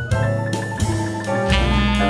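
Instrumental background music: a melody of distinct notes over a bass line.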